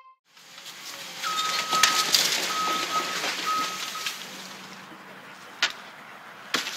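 Road traffic going by, with one vehicle passing louder for a few seconds and a faint high whine coming and going while it passes. Two sharp knocks near the end.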